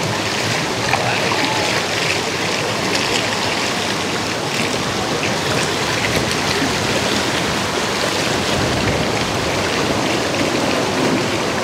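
Choppy, wind-driven lake water splashing and lapping steadily against a floating dock.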